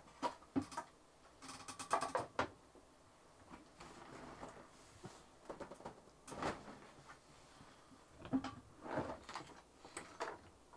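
Small plastic paint pots clicking and rattling against each other as they are gathered and set down, in scattered knocks with bursts of clatter about two seconds in, around six seconds and near the end.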